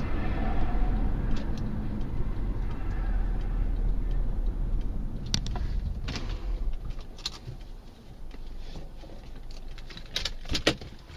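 Car interior road and engine noise picked up by a dashcam, fading as the car slows almost to a stop. Scattered sharp clicks and rattles come through, with a louder knock about ten seconds in.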